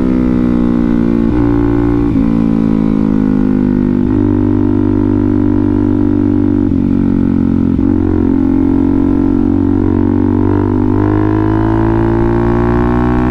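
Suzuki DR-Z400SM's single-cylinder four-stroke engine running at road speed. Its pitch falls and climbs with the throttle, with a few brief dips along the way.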